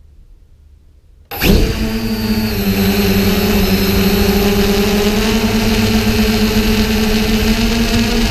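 Quattro X drone's electric motors and propellers spinning up suddenly about a second in, then running at a steady high hum as it lifts off, heard up close from the camera mounted on the drone.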